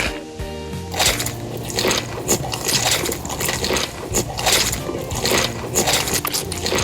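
Repeated crunchy bites and chewing of chicken, with background music playing underneath.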